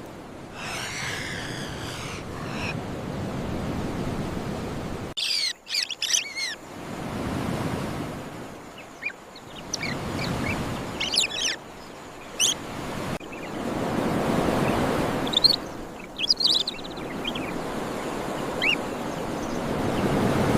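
Surf swelling and ebbing in slow surges, with clusters of short high bird chirps and calls over it. The ambience cuts off abruptly twice, about five and thirteen seconds in.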